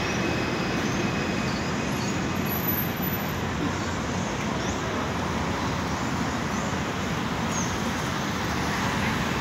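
Steady city street traffic noise, with cars driving past.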